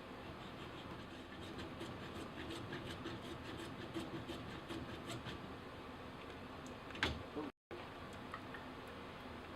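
Hand tool cutting into a plumbing pipe: a run of regular clicks, about three a second, then one sharp snap about seven seconds in.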